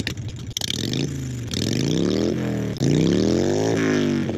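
Harley-Davidson Sportster 883 Iron's V-twin engine accelerating through the gears. After about a second of rushing, clattering noise, the engine note rises and drops back at each upshift, three times, then holds steady near the end.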